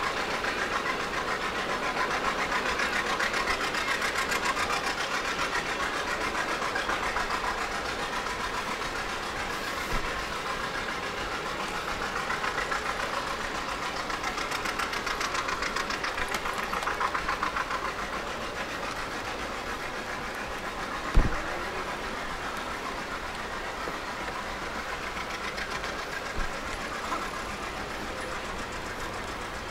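An engine running with a fast, even beat, fading away about two-thirds of the way through. A single sharp knock stands out a few seconds after it fades.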